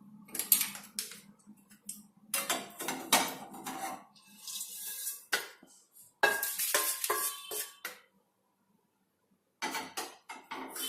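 A metal utensil clinking and scraping against a pan of dry-roasted spices, in several irregular bursts with some short metallic ringing, broken by a gap of dead silence about eight seconds in.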